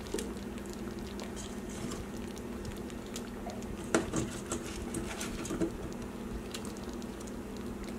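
Soft, irregular pattering and small clicks from a roasting pan holding a beef roast as red potatoes are set in around it, over a steady low hum.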